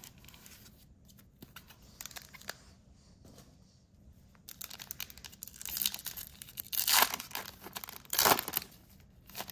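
Topps Series 2 baseball card packaging being torn open and crinkled by hand. Soft rustles and clicks give way about halfway through to louder tearing and crinkling, with the strongest tears near the end.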